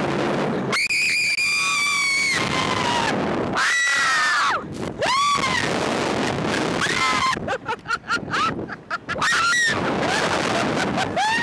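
Two women screaming on a Slingshot reverse-bungee ride as it flings them skyward. A long high scream starts about a second in, followed by a string of shorter shrieks and whoops, over wind rushing across the microphone.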